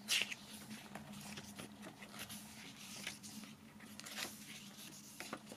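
Pages of a paper CD booklet being turned by hand: a short paper swish right at the start, then faint soft rustles and ticks as the pages are handled.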